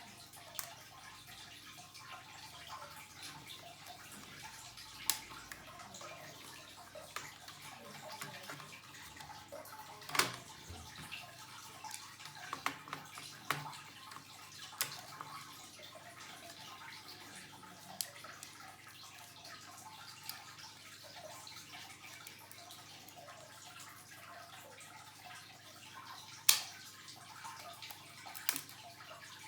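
Scattered light clicks and taps, a few of them sharper, over a faint steady hiss: the small sounds of handling laptop parts and tools during an SSD upgrade.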